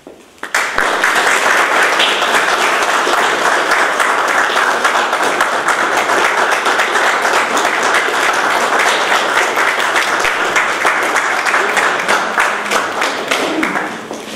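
A small roomful of people applauding, a dense steady clapping that starts about half a second in and tapers off near the end.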